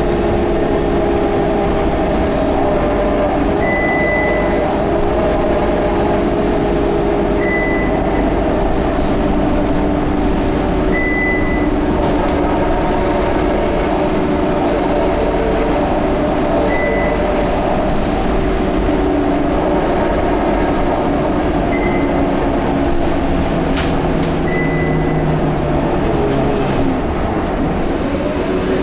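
Scania K230UB Euro V bus driving along, its drivetrain giving a steady low drone and a high whistle that wavers up and down, which the uploader takes for the turbo or the hub reduction axle. A short high beep repeats about every three to four seconds.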